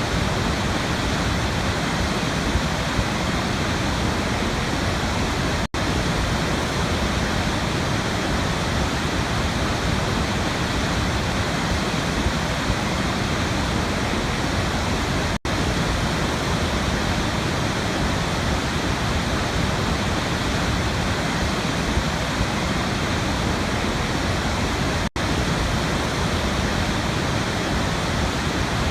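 Waterfall: a steady, dense rush of falling water, cut by a momentary gap three times, about every ten seconds.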